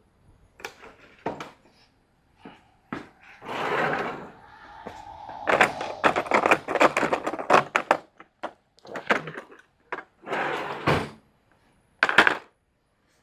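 Metal hand tools and parts clanking and rattling: a series of separate knocks and scrapes, with a dense run of rapid clatter in the middle.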